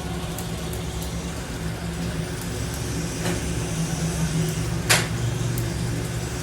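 Steady low mechanical hum, like a running motor or engine, with a single sharp click about five seconds in and a fainter knock a little before it.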